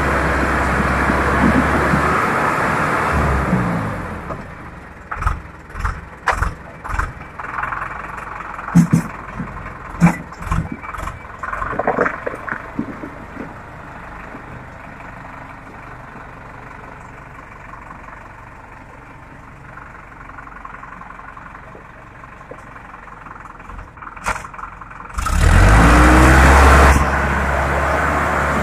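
Sonalika tractor's diesel engine labouring up a rocky off-road slope: loud at first, then quieter with scattered knocks and clatter, and revving up loudly again near the end.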